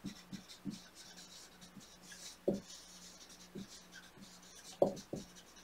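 Dry-erase marker writing on a whiteboard, with scratchy strokes and a few soft knocks against the board, the loudest near the end.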